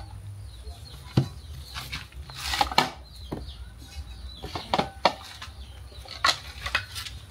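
Irregular knocks and clatters from cooking utensils and containers being handled, about a dozen short sharp strokes spread unevenly over a low steady background hum.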